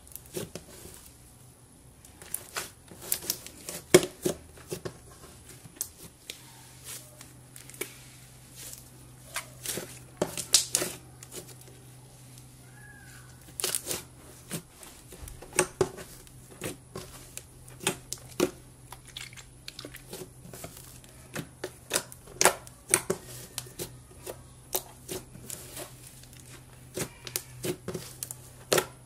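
Hands kneading and pressing thick slime, making irregular sharp sticky clicks and crackles.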